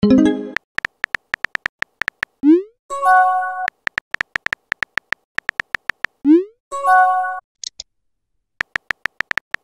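Text-messaging app sound effects: runs of rapid keyboard typing clicks, a short rising whoosh as each message is sent, and a brief synthesized chime as each new message appears. The pattern goes round twice, then the typing clicks start again near the end.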